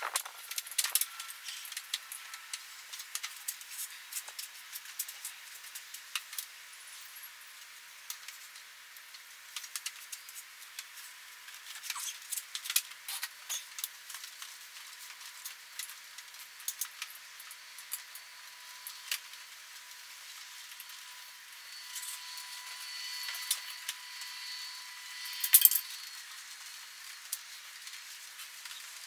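Scattered clicks, taps and light knocks of plastic and metal as a mini split's indoor unit is handled and hung on its metal wall mounting plate, with a louder clatter near the end.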